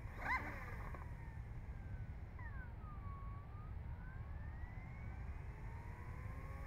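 Electric RC helicopter's 4006 630kv brushless motor whining faintly as it is slowly spun up, its pitch sliding up and down with the throttle and climbing near the end. A brief chirp sounds about a third of a second in, over a steady low rumble of wind on the microphone.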